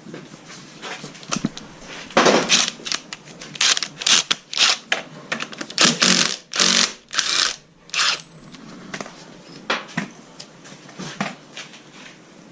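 A power tool run in a series of short, loud bursts, most of them between about two and eight seconds in, during work on a motorcycle's chain and sprockets.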